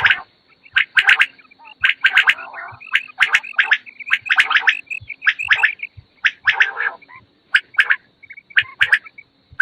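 Quails calling: short bursts of rapid calls, coming about one to two a second with brief gaps between them.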